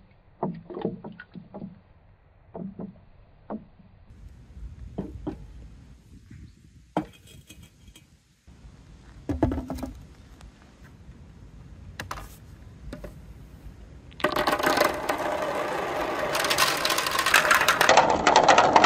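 A few scattered knocks and clicks, then about 14 s in a loud, dense rattling clatter starts: many small plastic balls pouring and rolling down a plastic marble-run slide and spiral.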